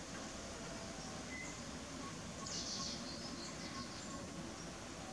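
Faint garden ambience with scattered bird chirps and a couple of short, high rasping calls over a steady background hiss.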